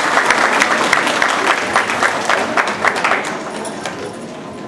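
Audience applauding, the clapping fading away from about three seconds in.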